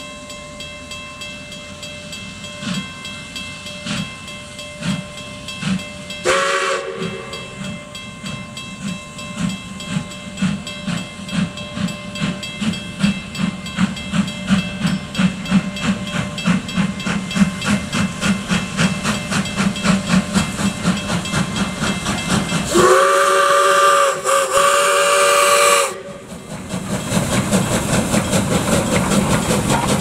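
South Australian Railways 620 class steam locomotive No. 621 pulling away, its exhaust beats quickening as it gathers speed. It gives a short blast on its steam whistle about six seconds in and a long, loud blast near the end. Then comes a loud hiss of steam as the engine draws close.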